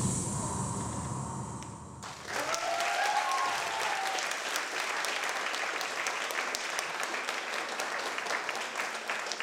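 The dance music's last notes fade out, then about two seconds in an audience breaks into applause, with a few cheers at first, and the clapping carries on steadily.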